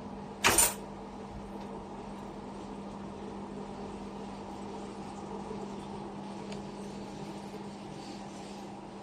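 A single sharp clack of kitchenware about half a second in, over a steady low hum.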